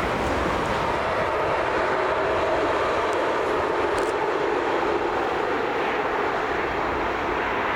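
A train running past at speed, a steady noise of wheels and running gear on the track.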